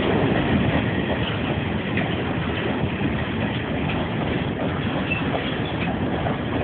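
Iron ore freight train on the move: steady noise of heavy wheels and wagons on the rails, with faint clicks over rail joints. Recorded on a mobile phone.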